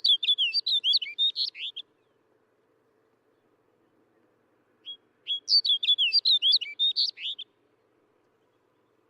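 Snow bunting singing: two short phrases of quick, warbled whistled notes, the first already under way at the start and the second about five seconds in.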